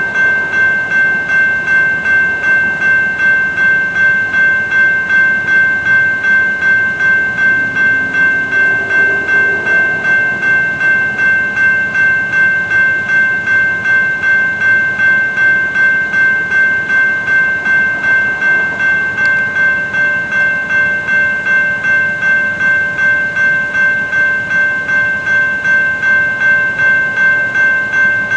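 General Signals Type 2 electronic railroad crossing bell ringing steadily, about two strokes a second. The crossing is still active with the gates down after the freight has gone by, held by a light rail train in the nearby station.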